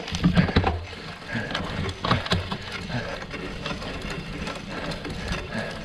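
Gravel bike clattering over a rough trail: a dense, irregular rattle of knocks from the frame and drivetrain over tyre noise, with a few heavier thumps in the first second.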